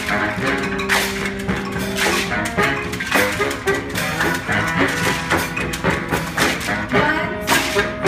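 Brass street band playing live: saxophones and other horns hold notes over regular percussion hits.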